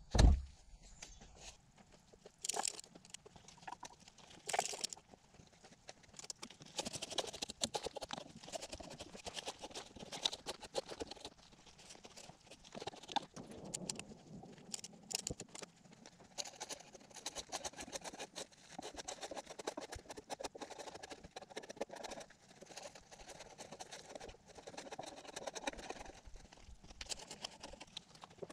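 A heavy log thumps down onto a wooden pallet trestle, then irregular scraping, rustling and light knocks from working the log by hand.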